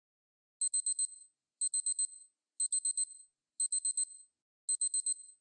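Electronic alarm beeping in quick groups of four high beeps, about once a second, starting just after half a second in: a wake-up alarm going off.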